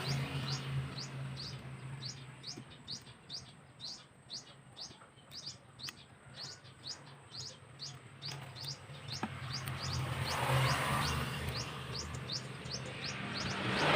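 A small bird chirping over and over, short high notes that slide downward, about three a second, over a low steady hum.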